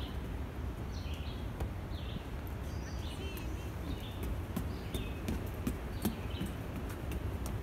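Footsteps knocking on a wooden boardwalk, a small child's and a walking adult's, under a steady low rumble. Short bird chirps repeat every second or so.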